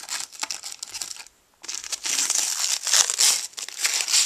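Clear plastic wrapping crinkling as it is handled around an external hard drive. A first run of light crinkles, a short pause about a second in, then denser, louder crinkling.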